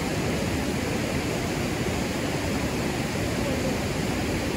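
River rapids, rushing water making a steady, even noise.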